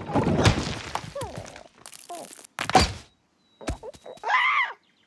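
Cartoon slapstick sound effects. A crashing clatter fades out over the first second and a half, then comes one sharp loud thud. Near the end there is a short cry that rises and falls in pitch.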